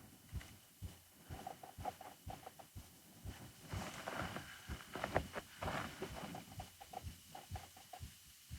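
Faint, irregular scuffs and clicks of footsteps on rough ground, with no steady rhythm.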